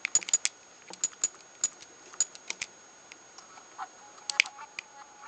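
Quick, irregular clicks of a Sony PSP being operated, its buttons pressed to move through the menus, in small bursts with short pauses between.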